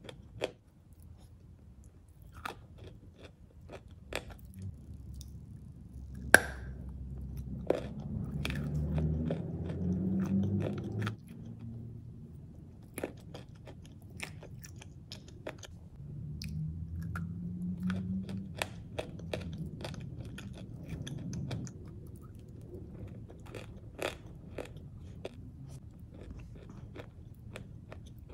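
A person biting and chewing pressed chalk coated in clay paste: irregular crunches and cracks, the sharpest about six seconds in, over the softer, wetter sounds of chewing.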